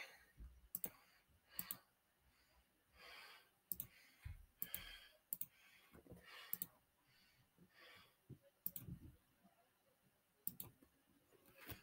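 Faint, irregular computer mouse clicks, a few seconds apart, against near silence.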